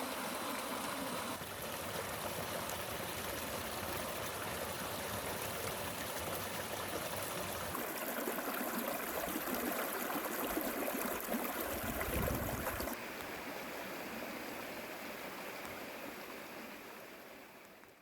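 A forest stream flowing, with a steady rush of water that changes character abruptly a few times, then fades out at the end.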